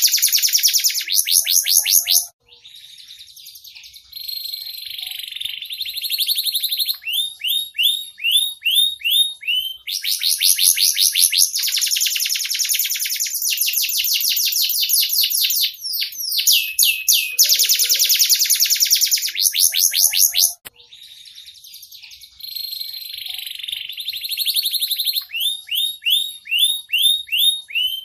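Domestic canary singing: long, fast trills and rolls with runs of falling notes, dipping briefly to a quieter passage about two seconds in and again near twenty seconds in, where the same song passage starts over.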